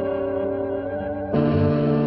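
Orchestral film score holding a sustained chord with a wavering high note. Just over a second in, a deep, steady ship's horn blast starts, louder than the music.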